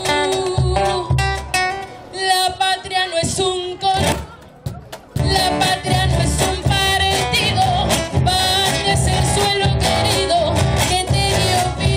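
A woman singing a Peruvian canción criolla into a microphone through a loudspeaker, over instrumental accompaniment. The music falls to a short lull about four seconds in, then picks up again.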